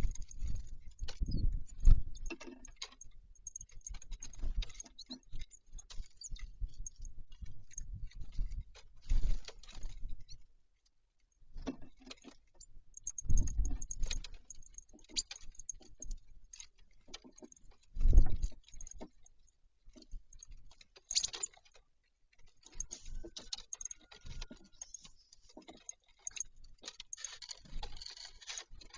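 Birds feeding at a bird feeder: irregular pecking taps and scrabbling, with several heavier knocks on the feeder.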